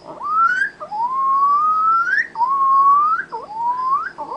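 A woman's vocal impression of a guinea pig wheeking: a run of high, whistle-like squeals, each rising in pitch, about five in a row, some short and one long and drawn out.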